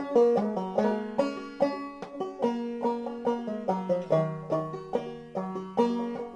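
Banjo played clawhammer style in fCFAC tuning: a fiddle tune picked as a steady, lilting run of plucked notes, each ringing briefly, several to the second.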